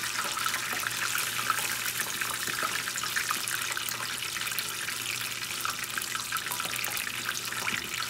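Chicken wings deep-frying in corn oil at about 300°F, the first, lower-temperature fry. The oil bubbles and crackles steadily around the pieces.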